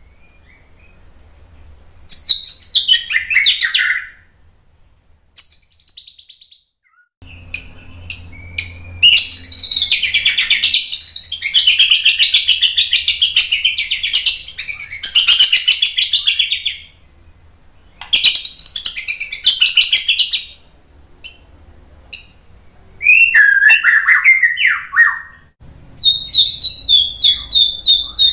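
White-rumped shama (murai batu) singing loud, varied phrases of whistles and chatter with short pauses between them. A long unbroken run comes in the middle, and a fast series of repeated sharp notes near the end.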